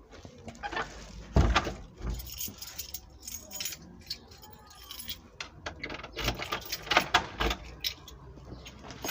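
Metal objects jangling and clinking in irregular bursts, with a louder knock about a second and a half in and another cluster of sharp clinks around six to seven seconds.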